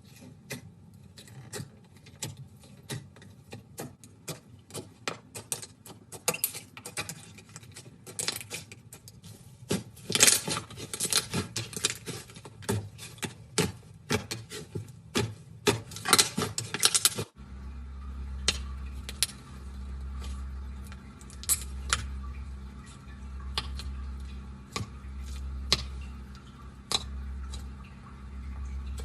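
Slime being squeezed and poked, with dense crackling and clicking. After an abrupt change about two-thirds of the way in, the clicks grow sparser over a low hum that swells every two seconds or so.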